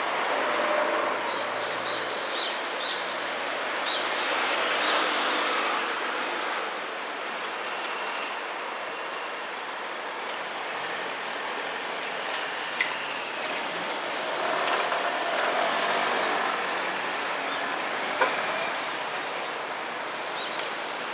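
Street traffic noise from cars passing on a residential road beside the railway, swelling twice as vehicles go by. A few short high chirps come near the start and two sharp clicks in the second half.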